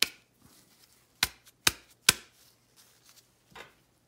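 Hard metal knocks on a workbench as the injector pump housing is rapped to shake its small inlet piston loose: a sharp knock at the start, three more about half a second apart a second later, and a softer one near the end.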